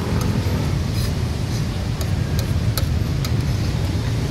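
A metal spoon clicking and scraping against a plastic plate, several sharp light clicks, over a steady low rumble of road traffic.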